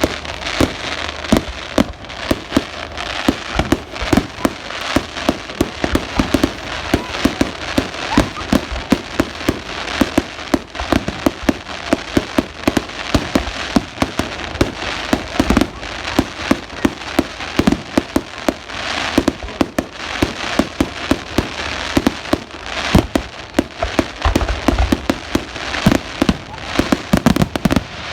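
Fireworks display: a rapid, continuous barrage of bangs and crackling, several reports a second, with a few heavier booms near the end.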